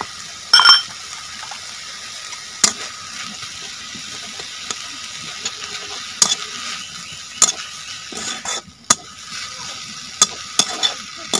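Steel spatula stirring drumstick (moringa) leaves in a steel kadai over a wood fire, with a steady hiss of the leaves cooking and sharp clinks and scrapes of metal on metal every second or so, the first ringing briefly.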